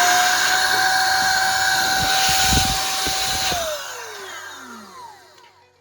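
Small battery-powered electric air pump (blower) running with a steady whine. About three and a half seconds in it is switched off, and its pitch falls as the motor spins down. A few low gusts of air buffet the microphone near the middle.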